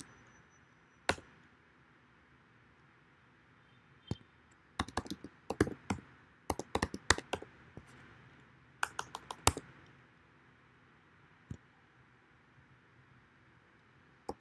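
Typing on a computer keyboard. A lone keystroke comes first, then several quick runs of key clicks with pauses between them, and one more lone keystroke near the end.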